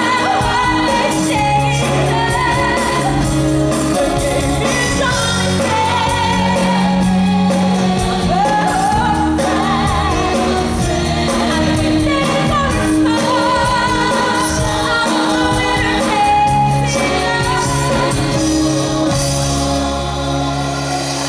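Live pop band performing a ballad, with a female lead singer belting sustained high notes over keyboard, bass and drums.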